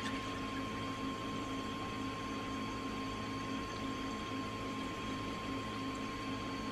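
Steady hum and watery noise of reef aquarium equipment running, with a thin steady high tone over a low rumble.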